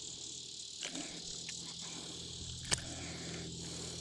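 Steady chorus of insects, crickets, with a few faint clicks and one sharp click about three quarters of the way through.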